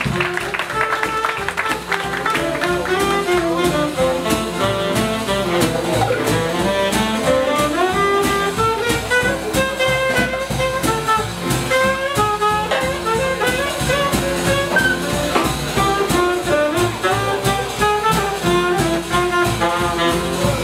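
Alto saxophone playing an improvised solo line in a small swing jazz band, over a steady beat from drums, upright bass and banjo.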